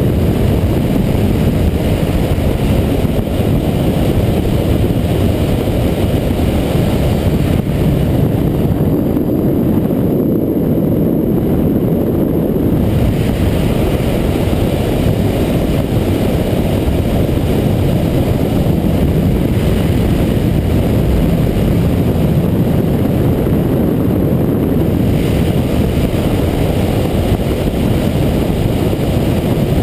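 Steady wind rush and road noise on the microphone of a Yamaha MT-09 Tracer motorcycle riding at speed, with the engine running beneath. The higher part of the hiss eases for a few seconds about nine seconds in and again briefly about three-quarters of the way through.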